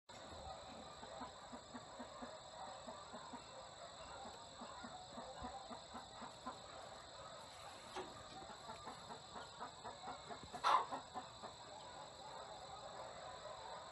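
Domestic chickens clucking softly and repeatedly, with a steady high-pitched hum underneath and one louder, sharper sound about eleven seconds in.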